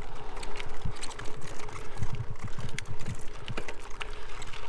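Gravel bike rolling over a gravel road: tyres crunching, with irregular knocks and rattles from the rough surface.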